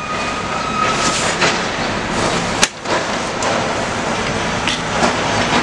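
Canon imageRUNNER 1435 photocopier starting up and running with a steady mechanical noise. A brief whine sounds in the first second, and a sharp click comes about two and a half seconds in.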